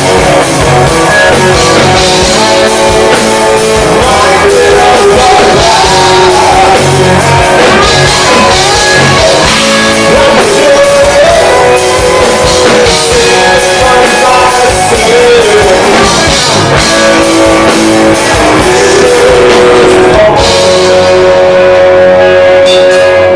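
Rock band playing live and loud: electric guitar, bass and drums, with a melody line that bends in pitch. Near the end the drums drop away and a single long note rings on.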